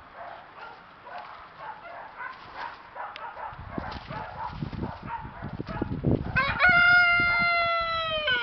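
Chickens clucking, then about six seconds in a rooster crows: one long, loud crow held for about two seconds, falling slightly in pitch at the end.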